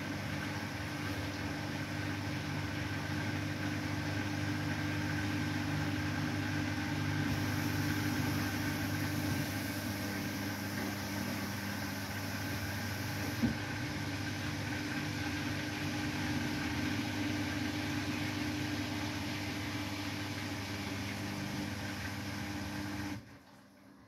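Beko WTK104121W front-loading washing machine spinning, a steady motor hum with a fixed whine. A single click about halfway through, and the sound drops away suddenly about a second before the end.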